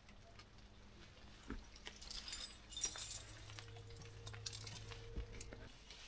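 Light metallic jingling and clinking in short bursts, loudest around the middle, with a faint low hum for a couple of seconds in the second half.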